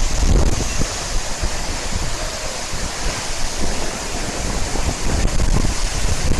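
Waterfall rushing in a steady wash of noise, with wind buffeting the microphone in uneven low gusts.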